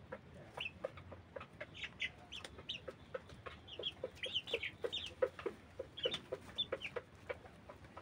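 A flock of young white broiler chickens clucking and cheeping, many short calls in quick succession, low clucks mixed with higher chirps.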